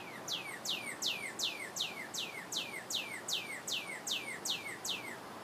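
Bird chirping a rapid, very regular run of falling notes, about three a second, each sliding from high to lower pitch; the run stops about five seconds in.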